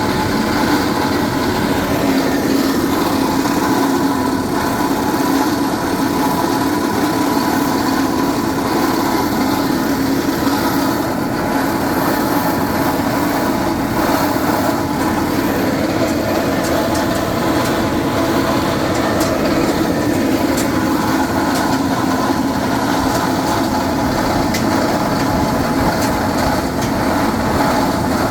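Hard-rock drilling rig running: a steady, continuous engine-and-machinery drone with faint scattered ticks.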